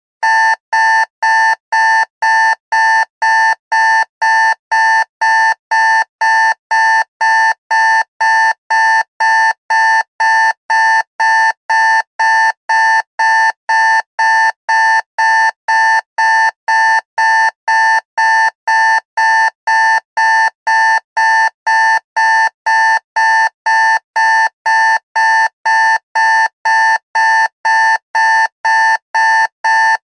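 Digital alarm clock beeping: short, identical high-pitched electronic beeps at an even pace of about two a second.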